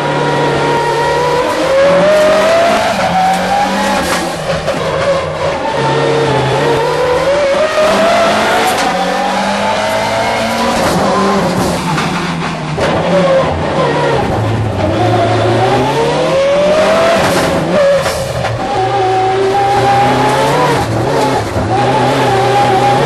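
Mitsubishi Colt Evo four-wheel-drive rally car's engine heard from inside the cabin, revving up hard through the gears with sudden drops in pitch at each shift, and falling away under braking for corners.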